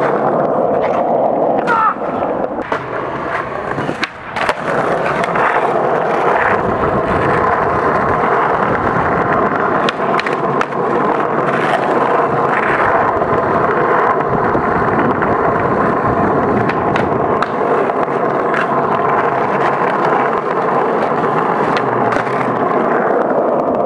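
Skateboard wheels rolling steadily over smooth paving, with scattered sharp clicks and knocks from the board.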